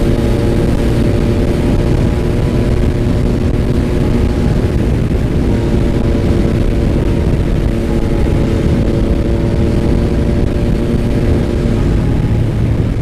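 Yamaha MT-09's three-cylinder engine running steadily at cruising speed, with wind and road noise rushing over the microphone.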